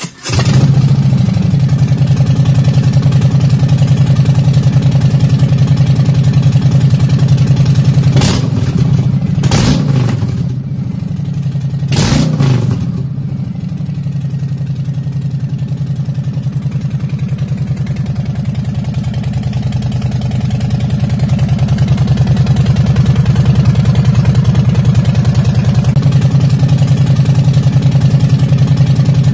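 Harley-Davidson FXDRS 114's Milwaukee-Eight 114 V-twin breathing through an aftermarket Blow Performance 3 Step exhaust. It fires up at the very start and idles, is blipped three times about 8, 9.5 and 12 seconds in, then settles back to a steady idle.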